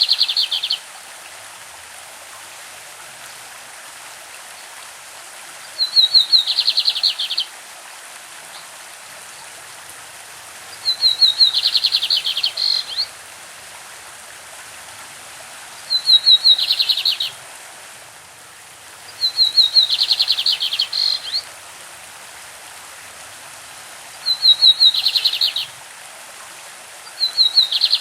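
A lined seedeater (bigodinho) sings its classic song: repeated phrases every four to five seconds, each a short high note running into a fast buzzy trill, over the steady rush of a stream.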